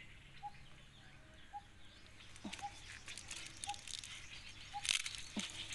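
A bird repeats a short single note about once a second. From about halfway, dry bamboo leaves and stems crackle and rustle as a hand works among bamboo shoots, loudest about five seconds in.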